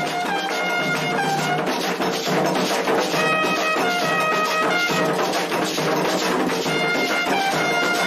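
Clarim (bugle) playing a melody of held notes that step up and down, with drums beating underneath.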